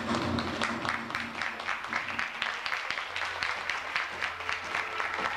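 Audience clapping: many quick, irregular hand claps from a small crowd, over a faint steady low hum.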